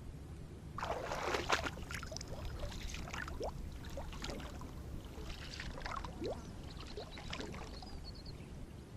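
Water splashing and gurgling, starting about a second in and loudest at first, with short rising gurgles over a low steady rumble.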